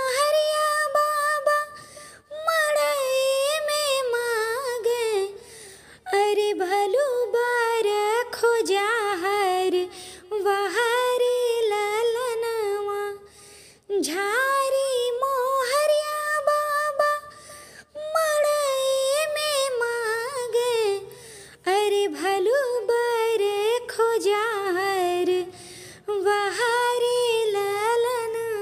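A woman singing an Awadhi wedding folk song (vivah geet) in a single voice, in phrases of about four seconds with short breaks between them.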